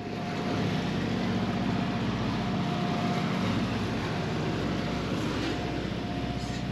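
Catamaran's diesel engine running steadily under way, an even low drone with a thin steady whine above it.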